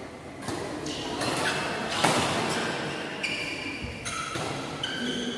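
Badminton rally: sharp racket-on-shuttlecock hits echoing in a large hall, the loudest about two seconds in, followed by short high squeaks of shoes on the court mat.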